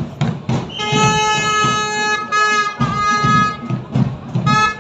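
A wind instrument blowing a long held note, then a few short toots near the end, over a steady drumbeat from the marching procession.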